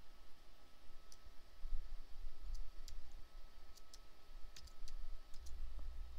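Computer mouse clicking: about eight sharp, short clicks scattered irregularly, some in quick pairs, over a low steady hum.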